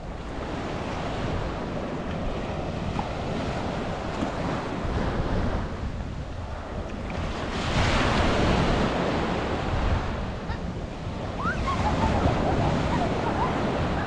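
Small sea waves breaking and washing up over a sandy beach. The surf swells louder about eight seconds in and again about twelve seconds in. Wind rumbles low on the microphone.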